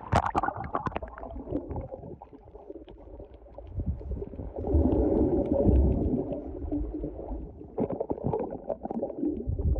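Muffled gurgling and rumbling of water around a camera held underwater, with a few sharp clicks at the start as it goes under. The rumbling gets louder for a few seconds in the middle as a hand stirs the water.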